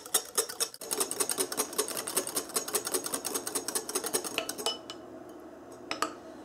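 Wire whisk beating hollandaise sauce in a glass bowl, its wires clicking rapidly and evenly against the glass. The whisking stops about two-thirds of the way through, leaving a couple of light clinks.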